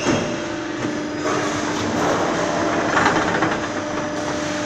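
Roll forming machine running, metal strip rattling through its forming roller stations over a steady hum, with louder clattering about three seconds in.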